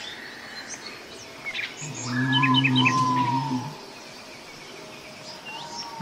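Mixed birdsong: scattered chirps and short gliding whistles, with a run of three quick high chirps about two and a half seconds in. A low steady drone starts about two seconds in, lasts about a second and a half, and is the loudest sound.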